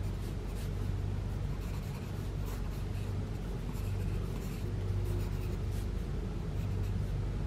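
Pencil scratching on paper in short, irregular sketching strokes, over a steady low hum.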